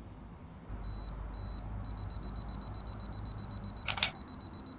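Camera self-timer beeping at a high pitch, two short beeps and then rapid beeping, with the shutter clicking about four seconds in. A low rumble sits underneath from about a second in.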